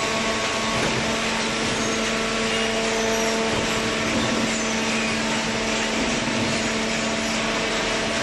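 Hydraulic baler's electric motor and pump running steadily: a constant mechanical hum with a steady hiss.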